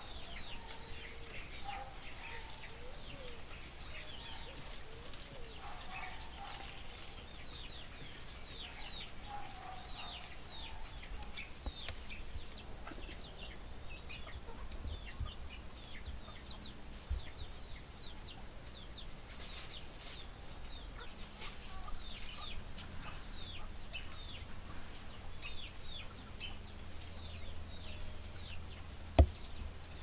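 Outdoor birds: many small birds chirping constantly in short, quick downward notes, with lower clucking calls in the first half. A single sharp knock sounds about a second before the end.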